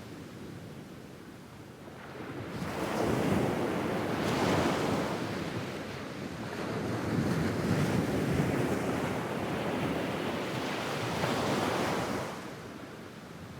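Medium-sized waves breaking and washing up a sandy beach in a regular rhythm: a surge builds a few seconds in, a second swells after the first eases, and the wash falls away near the end.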